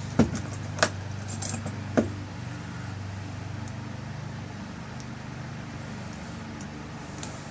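Metal clicks and clinks of a lock cylinder, its parts and its key being handled while the cap is screwed back on. There are several sharp clicks in the first two seconds and one more near the end, over a steady low hum.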